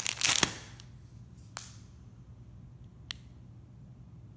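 Plastic packaging bag being handled: a short burst of crinkling crackles, then two single sharp clicks about a second and a half apart.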